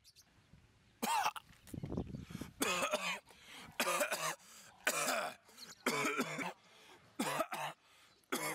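A man coughing in a long fit, one loud cough about every second, beginning about a second in. He is choking on cigarette smoke.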